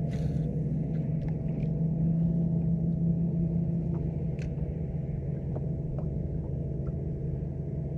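Bow-mounted electric trolling motor running with a steady low hum over a general rumble. A brief hiss comes right at the start, and scattered light clicks come through the hum.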